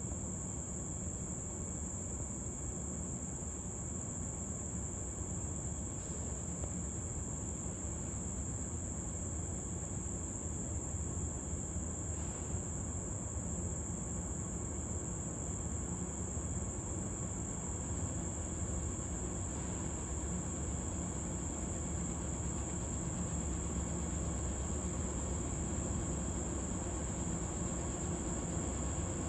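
A steady, high-pitched insect chorus over the low rumble of CSX diesel locomotives approaching at the head of a heavy loaded coal train, the rumble growing slightly louder toward the end.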